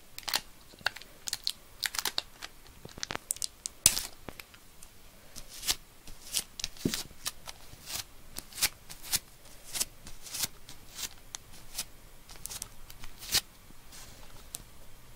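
Irregular sharp crackles and clicks of sticky tape and cloth being handled close by, thinning out near the end.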